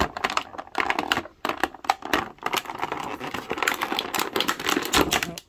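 Clear plastic packaging bag crinkling and crackling as hands handle an action figure inside it, a dense run of irregular crackles.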